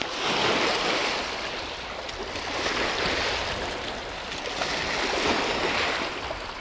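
Waves washing against the shore, rushing water that swells and eases three times.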